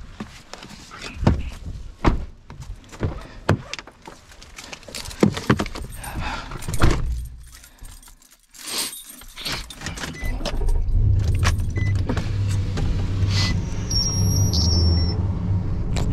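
Clicks, knocks and jangling keys as someone settles into a Nissan pickup's cab. About ten seconds in the engine starts and runs at a steady low idle. A brief high beep sounds near the end.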